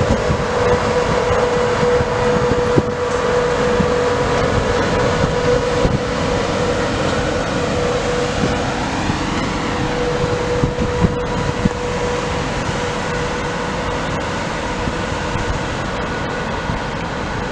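Hellenic Railways (TRAINOSE) class 220 diesel-electric locomotive running light as it moves off. Its engine runs with a steady high whine over a dense drone, growing slightly fainter as it draws away.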